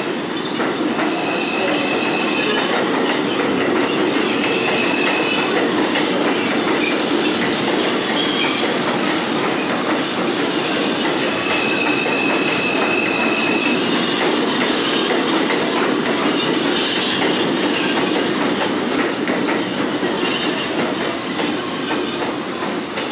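R142 subway train running along the station track: a steady, loud rumble of wheels on rail, with a high wheel squeal that comes and goes several times.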